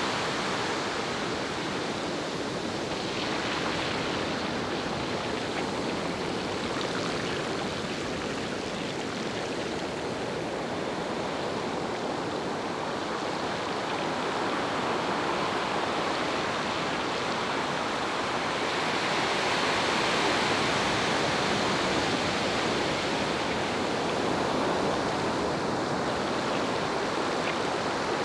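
Steady rushing water noise as a bicycle rides through the shallow, foamy wash of surf on wet sand.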